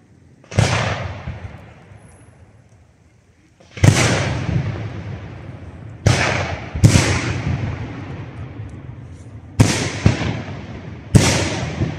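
Aerial firework shells bursting overhead: six loud bangs, two of them close together in the middle, each trailing off in a long rolling echo.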